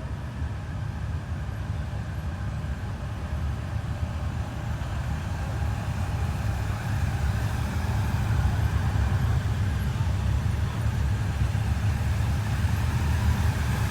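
Motorcycle engines running in a steady low rumble that gradually grows louder.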